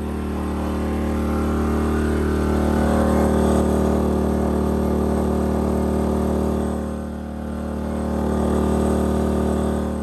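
Westinghouse iGen2500 inverter generator's engine running steadily under the load of a 15,000 BTU RV air conditioner on low cool, holding it without overloading. Its loudness swells, dips about seven seconds in, then rises again.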